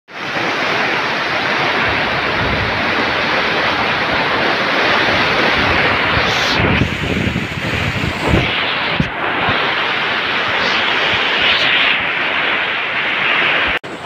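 Heavy downpour drumming steadily on a plastic tarp roof, with gusts of strong wind rumbling on the microphone now and then.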